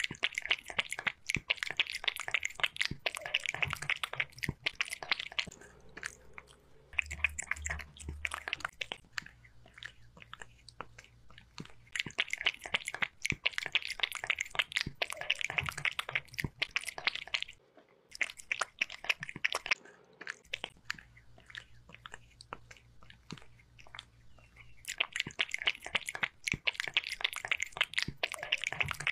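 A kitten lapping beef broth from a glass bowl close to the microphone: quick wet licking clicks in runs of a few seconds, with short pauses between them.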